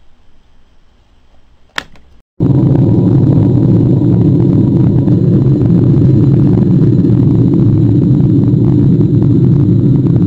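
A single sharp click of a plastic novelty push-button being pressed, then about two and a half seconds in a loud, steady, deep explosion rumble cuts in abruptly and keeps going: a mushroom-cloud blast sound effect.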